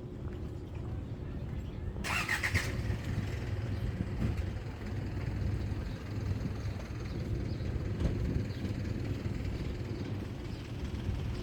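A motor vehicle's engine running close by, a steady low rumble, with a brief high-pitched screech about two seconds in.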